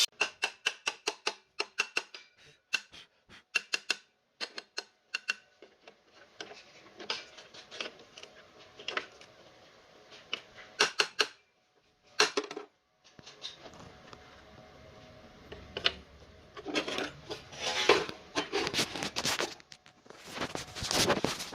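Sharp clicks and light metallic clinks and clanks of hollow steel section and tools being handled. A quick run of clicks comes first, then scattered knocks, then louder clusters of clatter near the end; the cutting machine is not running.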